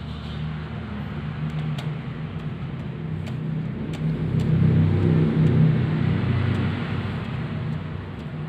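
A low, steady motor-vehicle engine rumble that grows louder from about four to six seconds in and then eases, with a few faint clicks over it.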